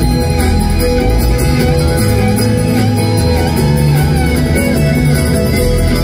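Live bluegrass string band playing an instrumental passage: picked acoustic guitar over upright bass, with mandolin and fiddle, heard from the crowd in a large arena.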